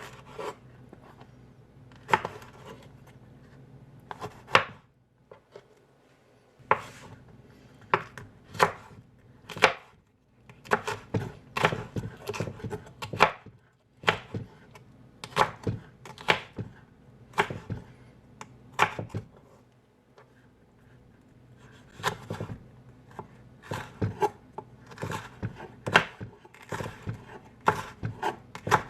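Knife chopping food on a cutting board: sharp knocks in irregular runs of strokes, with two short pauses.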